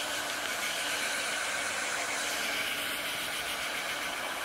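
Handheld electric hair dryer running steadily, blowing a constant hiss of air.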